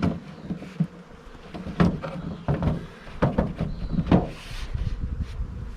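Several short wooden knocks and clunks as beehive parts, the lid and boxes, are handled and set in place.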